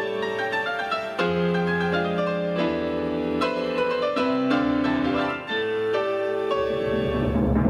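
Yamaha PSR-S950 arranger keyboard played live: held chords and melody notes over sustained bass notes that change about every second, with a brief drop in level about five and a half seconds in.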